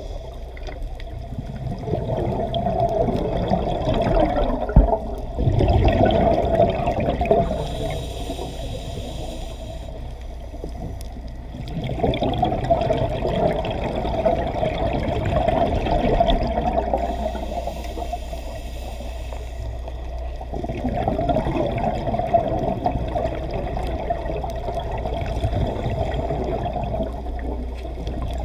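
Underwater recording of a scuba diver breathing through a regulator: exhaled bubbles gurgle in three long swells about nine seconds apart, with quieter stretches between.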